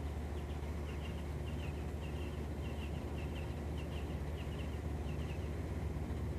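A small bird chirping over and over, about two short high chirps a second, over a steady low rumble.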